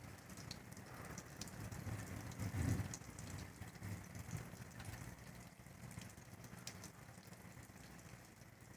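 Steady rain during a thunderstorm, with scattered drops ticking close by. A low rumble swells about a third of the way through and then fades.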